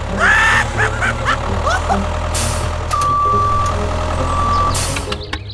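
A vehicle engine runs with a steady low hum. In the first two seconds there are a few short rising squeaks. Two high beeps follow, a longer one about three seconds in and a shorter one about a second later.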